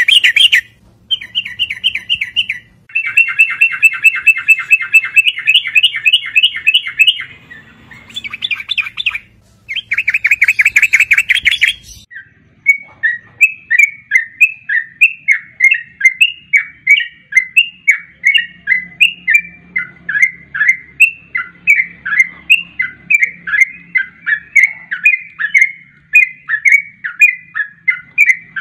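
Yellow-vented bulbul (trucukan) song, a recording played as a lure call. For the first dozen seconds it gives bursts of rapid chattering trills broken by short pauses. After that comes a steady run of short falling chirps, two or three a second.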